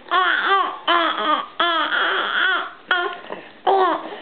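A young baby vocalising: about five short, high-pitched squeals and coos in a row, each rising and then falling in pitch.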